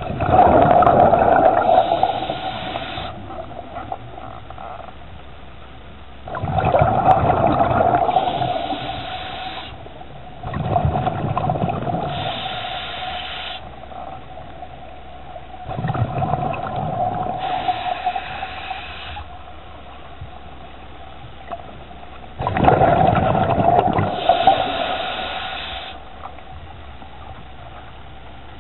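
A scuba diver breathing through a regulator underwater: five breaths about five to six seconds apart, each a rumble of exhaled bubbles together with a hiss, over a faint steady tone.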